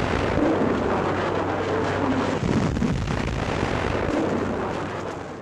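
The long rumble that follows a heavy artillery gun's blast, a dense noisy roll that fades away near the end.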